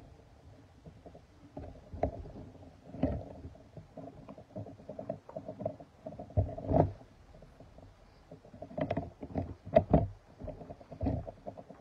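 Footsteps and handling noise of a hand-held camera phone carried while walking: irregular thumps and rubbing, with a faint steady hum underneath.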